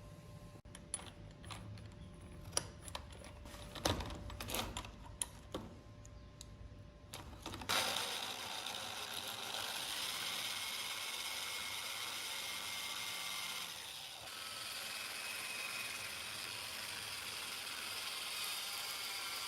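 Scattered sharp metal clicks and knocks, then about eight seconds in a steady, hissing machine noise starts suddenly and runs on, dipping briefly near fourteen seconds.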